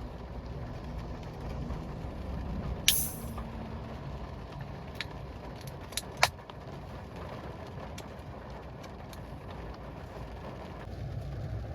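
Steady rain heard from inside a car, with a short sharp hiss about three seconds in and two sharp clicks a little after six seconds.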